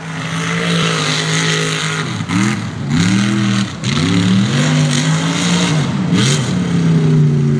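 Mega truck's engine running hard at steady revs, then revved up and down repeatedly from about two seconds in, before settling back into a steady high pitch near the end.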